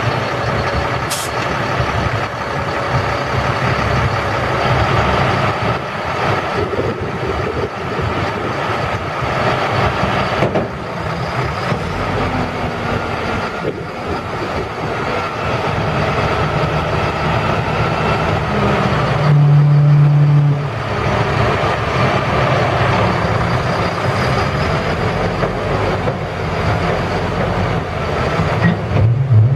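Caterpillar C7 diesel engine of a Freightliner M2 roll-off truck running steadily. A strong low hum stands out for about two seconds around two-thirds of the way in, and near the end a rising tone comes as the truck's hoist raises the roll-off container.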